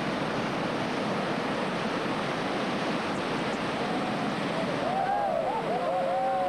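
Steady rush of whitewater rapids churning through a river hole. A little over halfway through, onlookers' voices start shouting and whooping over it.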